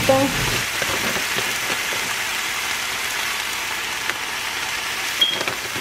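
Ham slices and buttered almond-flour bread rounds frying on a griddle: a steady sizzle.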